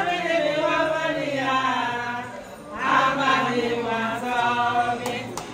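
A small group of people singing together in unison, with long held notes in two phrases and a short break between them.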